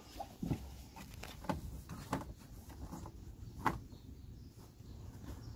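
Hands and tools handling a serpentine belt and tensioner bar on a Ford Transit engine: a handful of light clicks and knocks, the sharpest about two-thirds of the way through, over a low steady hum.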